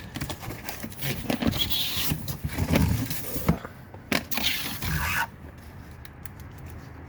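Handling noise: scraping, rubbing and knocks for about five seconds, then it goes quieter.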